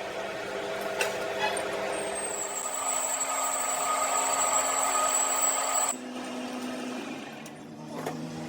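An electric power tool's motor running with a steady whine that cuts off suddenly about six seconds in, after a couple of sharp clicks near the start.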